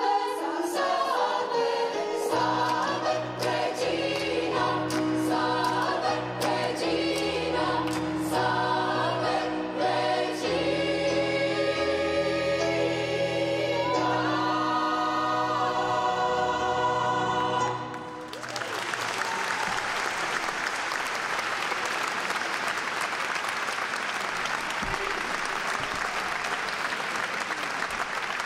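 A mixed gospel choir sings with instrumental accompaniment, ending on a long held final chord. About two-thirds of the way through the music stops and the audience breaks into steady applause.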